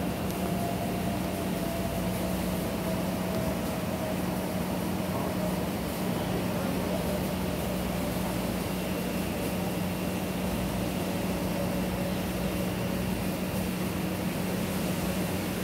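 Steady low hum over a constant hiss, with a faint tone slowly falling in pitch.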